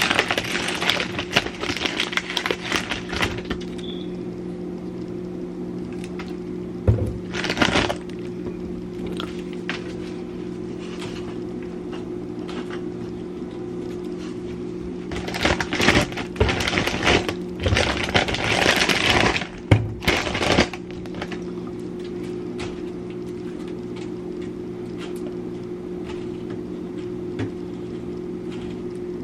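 Household objects being handled: irregular clattering and scraping, in bursts near the start, around a quarter of the way in, and for several seconds past the middle. A steady low hum runs underneath.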